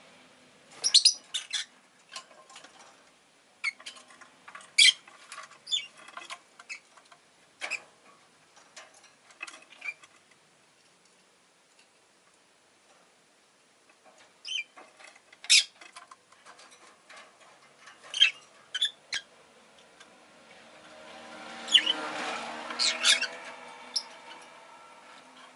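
Rosy-faced lovebird giving short, sharp, high chirps and squeaks in scattered clusters, with a quiet pause in the middle. Near the end a broad swell of rushing background noise rises and fades under the calls.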